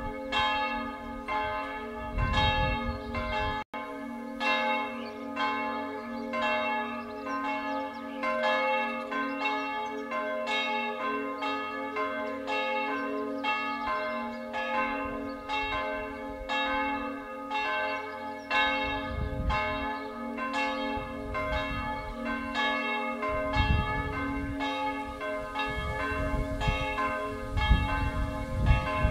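The historic bells of a village church ringing together, strike after strike at a steady pace, about one and a half a second, over their lasting hum, with low rumbles from time to time.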